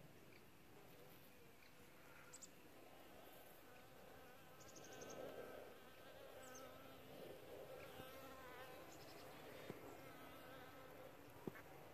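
Honeybees buzzing faintly at a hive entrance, the hum wavering and swelling as bees fly close, with two small clicks near the end.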